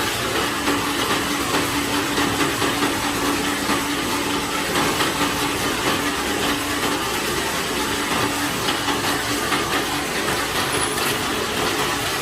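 Concertina razor wire making machine running: a dense, steady mechanical clatter with a humming tone that cuts in and out from about halfway.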